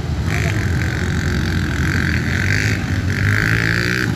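Harley-Davidson Pan America 1250's V-twin engine running steadily, with a rushing hiss over it that comes and goes three times.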